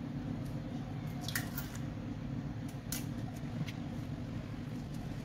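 An egg opened over a glass bowl of flour and worked in by hand: soft crumbly rubbing with a few light clicks, over a steady low hum.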